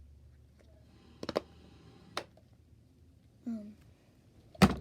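A few sharp plastic clicks from fidget toys being pressed and handled, the loudest near the end, with a brief hum from a child's voice in between.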